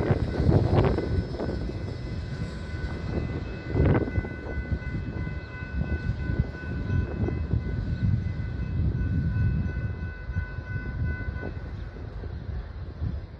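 Freight train of tank cars rolling away on the rails: a low rumble with sharp clanks about a second in and again around four seconds. A steady high-pitched ringing tone with overtones sounds over it and stops near the end. The rumble fades as the train draws off.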